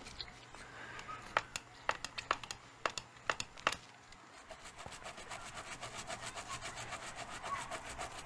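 A few scattered clicks and taps, then quick, even rubbing strokes, about seven a second, from about halfway through: the controller's circuit board being scrubbed clean.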